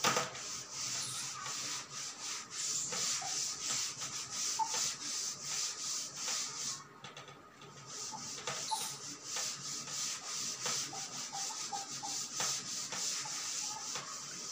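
Blackboard duster rubbed back and forth over a chalkboard, wiping off chalk writing, with a brief pause about halfway through.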